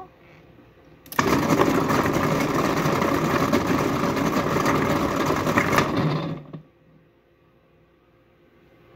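Breville Sous Chef 16 Peel & Dice food processor running with its peeling blade, chunks of fresh ginger tumbling and clattering in the bowl as their skin is abraded off. It starts about a second in and cuts out about six seconds in, with a brief low hum as the motor spins down.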